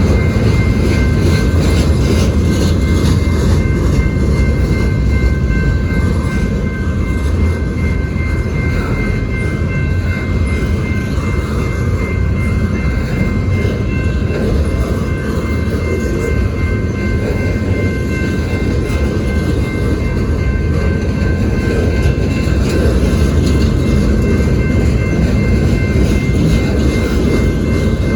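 Freight train rolling past: a steady low rumble of cars on the rails, with a few thin steady high tones held over it.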